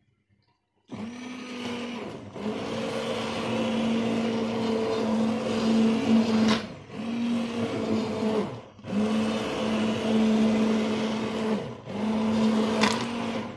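Electric stick blender running in the cooking liquid Castile soap paste in a stainless steel pot, starting about a second in and run in several bursts with short pauses where the motor winds down. Two sharp clicks come partway through and near the end.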